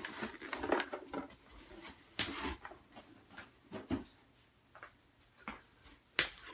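Boxed merchandise being handled and set down: scattered rustling of cardboard packaging with a few light knocks.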